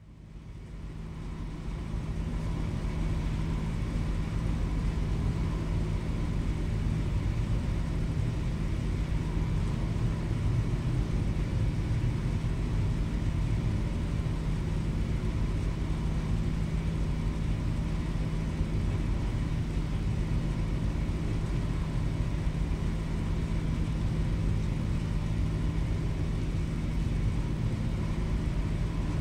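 Steady low rumble and hum of a ferry's engines and machinery, heard aboard the Jumbo Ferry Aoi, with a constant low drone. It fades in over the first couple of seconds and then holds unchanged.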